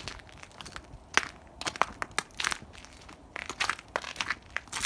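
Footsteps crunching through crusty frozen snow and slush on a paved sidewalk: a string of crackly crunches, one every half second or so, after a quieter first second.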